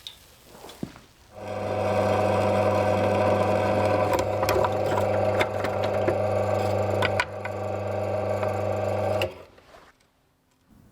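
An electric motor-driven machine switched on, running steadily with a hum for about eight seconds, then switched off. Sharp ticks sound over it, and it dips briefly about seven seconds in.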